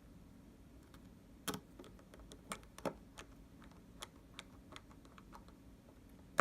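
Faint, irregular clicks and taps of a small precision screwdriver and tiny screws being driven into an iPhone 6 during a display replacement, over a faint steady hum.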